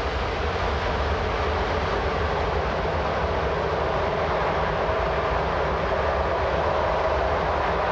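A passenger train hauled by a BLS Re 4/4 electric locomotive running steadily over a viaduct, a continuous low rumble under an even rushing noise.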